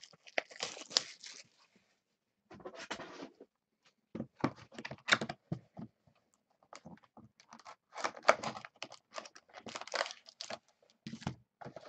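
Cellophane shrink wrap being torn off a retail box of trading cards, followed by plastic crinkling and cardboard rustling as the box is handled and opened. The sound comes in short irregular bursts of crackling with brief pauses between.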